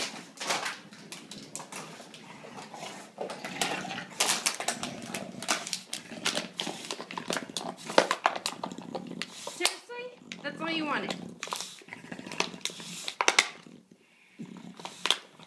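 English bulldog chewing and pawing at a plastic bottle, the plastic crackling and clicking irregularly.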